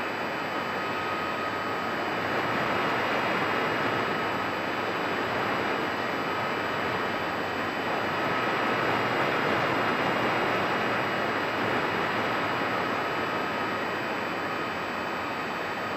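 Steady rush of airflow and propeller noise with a thin, steady motor whine, picked up by a camera on board a flying radio-controlled model airplane. The level swells a little now and then.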